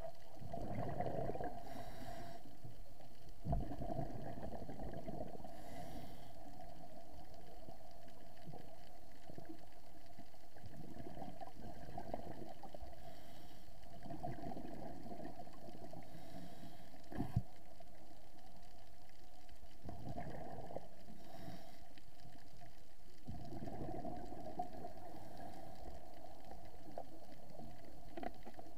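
Scuba diver breathing through a regulator underwater: exhaled bubbles rush and gurgle in swells every few seconds between fainter inhalation hisses. Two sharp clicks cut through, one a few seconds in and a louder one just past the middle.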